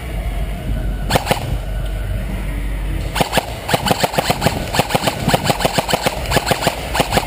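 Airsoft guns firing: a couple of shots about a second in, then rapid bursts of sharp shots from about three seconds in to near the end.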